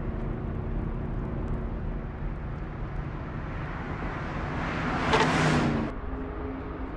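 Chevrolet Camaro Z/28's 7.0-litre V8 running at speed on track, growing louder to a peak about five seconds in as the car passes close by, then its note drops in pitch as it moves away.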